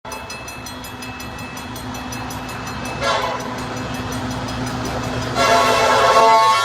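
Train running by, its wheels clicking in an even rhythm about three times a second over the rail joints, with a steady hum. Its horn comes in about halfway through and sounds much louder near the end.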